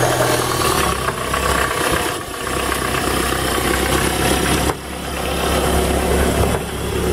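Nanni 80 hp marine diesel engine idling steadily with a low hum, seconds after a cold start that caught with no hesitation.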